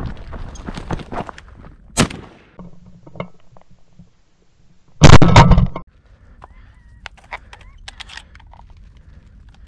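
A shotgun fired once at flushing quail, a very loud blast about five seconds in with a short ringing tail. Before it, rustling and crunching through dry brush, with a sharp snap about two seconds in.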